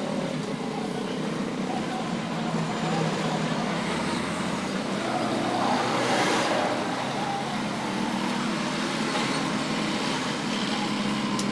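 Steady road traffic noise, with a vehicle passing about six seconds in.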